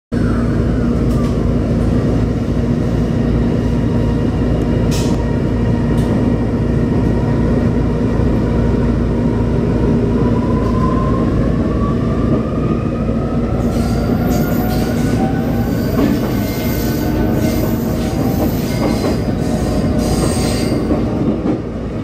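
In-cabin running noise of a JR East EV-E301 battery-electric train: a steady low rumble of wheels on rail. About halfway through, a whine rises in pitch as the electric traction motor speeds up. Irregular clicks and knocks from the track join in over the second half.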